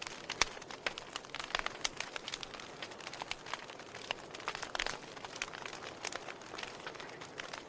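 Fire crackling: wood burning with frequent irregular snaps and pops over a soft hiss.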